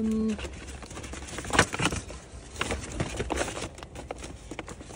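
Rustling and light clicks and knocks of thrifted items and bags being handled and unpacked, in scattered short bursts.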